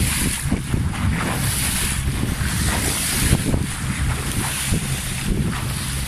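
Wind buffeting the microphone over water rushing and splashing past the hull of a motorboat under way.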